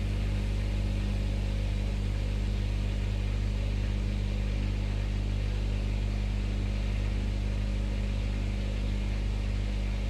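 Samsung WF-R1062 front-loading washing machine running: a steady low hum with an even hiss over it, unchanging throughout.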